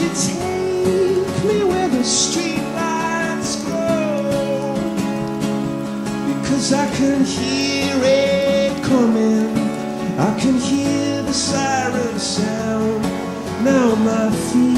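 Music: a strummed acoustic guitar accompanying a sung vocal line.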